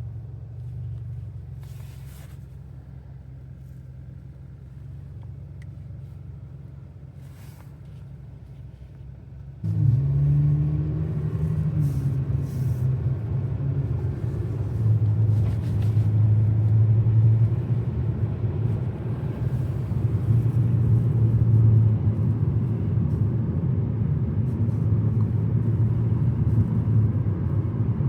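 A car driving, its engine and road noise a steady low rumble heard from inside the cabin, which turns suddenly louder about ten seconds in and stays louder.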